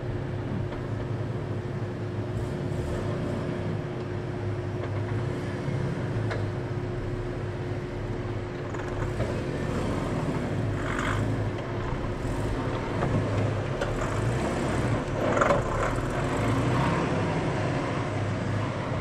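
First-generation Nissan Xterra's engine running at low speed under load as the truck crawls up a sandy trench, a steady low drone. A couple of brief louder noises stand out about 11 and 15 seconds in.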